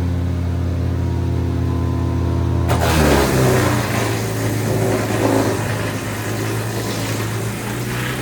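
SKARPER X28i wood chipper running steadily, then about three seconds in it starts chipping thuja: a sudden harsh noise of wood being cut and shredded joins the engine, whose pitch drops under the load.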